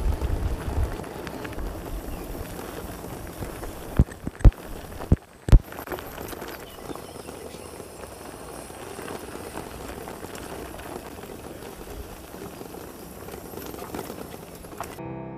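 Fiido L3 folding electric bike ridden over a dirt and gravel track: steady rumble of the tyres on the rough surface, with four sharp knocks between about four and five and a half seconds in as the bike jolts. Music comes in at the very end.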